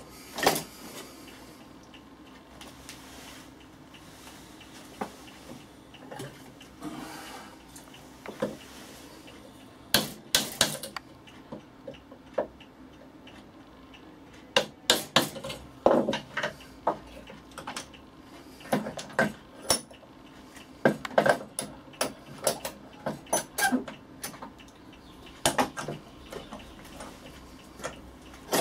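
Chisel driven with a hammer, chopping out the blade mortise in a wooden hand-plane body: sharp knocks, scattered at first, then in short quick runs with pauses between.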